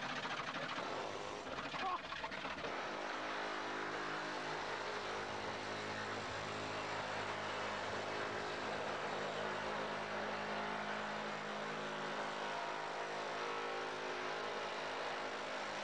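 Pneumatic air chisel cutting through the sheet-steel side panel of a van: a steady, harsh buzzing hammer that sets in about three seconds in and holds on without a break.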